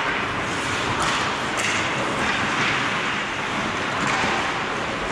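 Ice hockey skate blades scraping and carving the ice close by, a hiss that swells and fades in surges, with a few sharp knocks.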